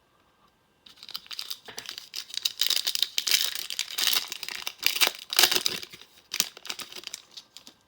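Trading card pack wrapper being torn open and crinkled in the hands, a run of rustling tears and crumples lasting about six seconds.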